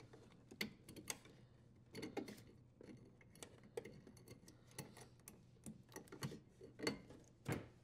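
Faint, irregular clicks and taps of small parts being handled against a dishwasher's sheet-metal junction box as the strain relief and power cord wires are pulled out through its hole, with a couple of louder taps near the end.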